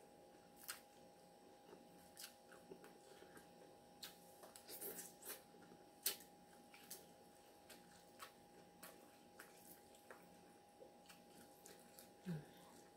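Faint eating sounds: a plastic fork clicking and scraping in a glass bowl of salad, with chewing, as scattered sharp clicks, a small cluster about five seconds in. A faint steady hum runs underneath.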